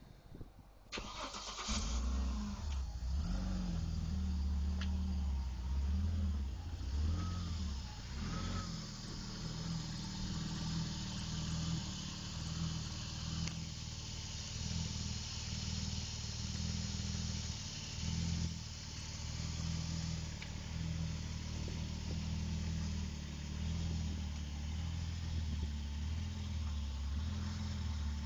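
Vauxhall Senator's C30NE 3.0-litre straight-six engine starting about a second in, then idling steadily.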